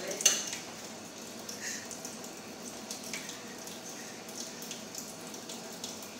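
Tap water running into a stainless-steel sink while dishes are rinsed and scrubbed, with a sharp clink of dishware about a third of a second in and a few lighter clicks after.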